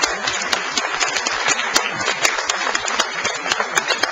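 Audience applauding, with many quick, irregular claps, some of them sharp and close by.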